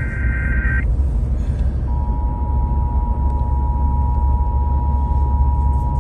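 Emergency Alert System broadcast tones over the radio. The last SAME data burst, a buzzy electronic warble, cuts off about a second in. About a second later the EAS attention signal, a steady dual-tone alert, starts and holds, over a steady low rumble.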